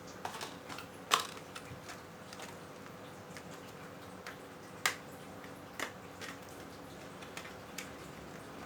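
Plastic retail packaging of a new RAM kit being handled: scattered sharp clicks and crackles, the loudest about a second in and again just before five seconds.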